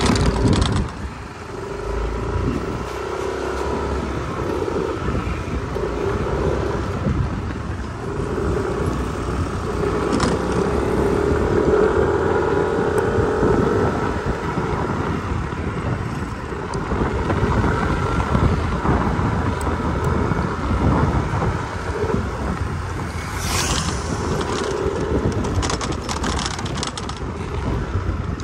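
Motor scooter being ridden along a rough road: its engine drones and wavers in pitch with the throttle, under steady wind buffeting on the microphone. A short hiss comes near the end.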